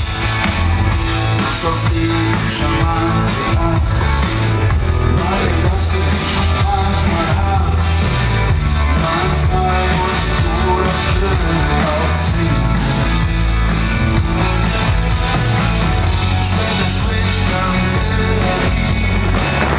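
Live rock music played loudly over a large open-air sound system, with a strong bass line and steady drum beat.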